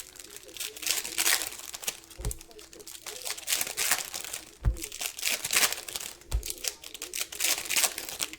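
Crinkly plastic wrapping on trading-card boxes or packs being handled in bursts of rustling, with three dull thumps about two, four and a half and six seconds in.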